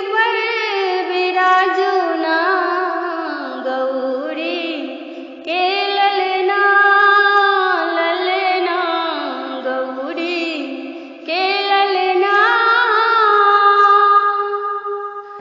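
A woman sings a Maithili devotional aarti to Ganesh in long, drawn-out phrases of held, wavering notes, with brief pauses about five and eleven seconds in.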